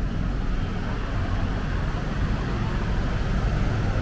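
Steady city street traffic noise: a continuous low rumble of passing vehicles, with no distinct single event.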